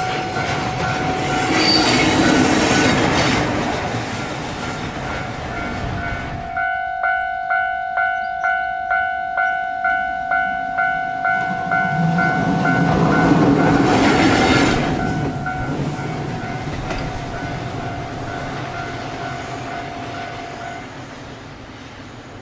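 Japanese level-crossing alarm ringing in a steady two-tone beat while a train runs past with loud wheel and rail noise. The train noise drops away about six seconds in, leaving the alarm clear at about two and a half strikes a second. A second rush of train noise swells and fades a few seconds later, and the alarm stops near the end.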